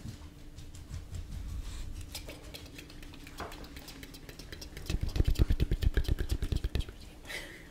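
Close-up mouth sounds made right into a microphone: scattered wet clicks, then, about five seconds in, roughly two seconds of a loud, rapid fluttering lip trill, like a small motor.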